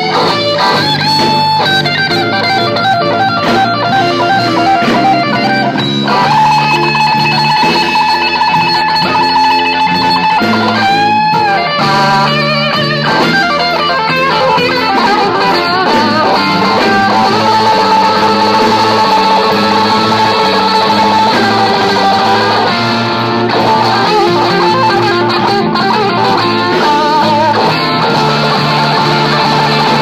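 Live electric blues guitar: a Telecaster-style guitar played lead, with long held notes and string bends over a bass line.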